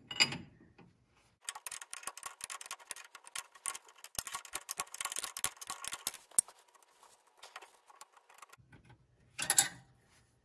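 Ratcheting wrench clicking rapidly for about five seconds as a hydraulic line fitting is loosened, then a single short metallic knock near the end.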